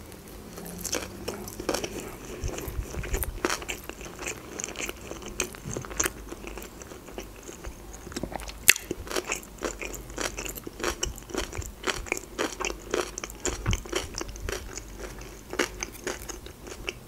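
Close-miked mouth sounds of a person chewing a mouthful of sushi roll: a steady run of small wet clicks and crunches, with one sharper click a little past halfway.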